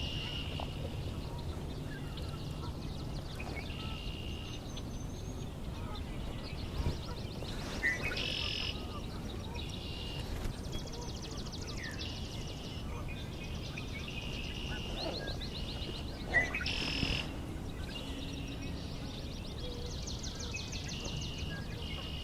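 Several songbirds singing over one another, among them swamp sparrows and red-winged blackbirds, with rapid trilled songs and clear held notes repeating every few seconds. A few brief knocks break in, the loudest about two-thirds of the way through.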